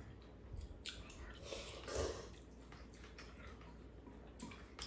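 Quiet eating sounds: two people chewing noodles, with a few light clicks of chopsticks and a spoon against bowls.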